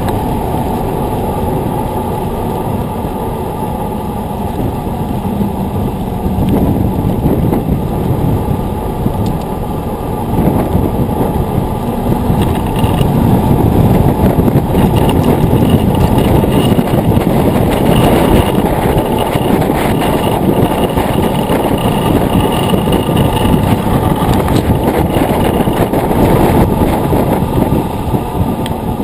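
Rushing noise of a mountain bike rolling fast on asphalt: knobby tyre roar and wind buffeting the wheel-mounted camera's microphone. It grows louder about a third of the way in and eases slightly near the end.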